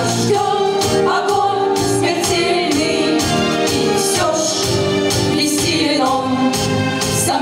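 A group of four school pupils singing together into microphones over instrumental accompaniment with a steady beat.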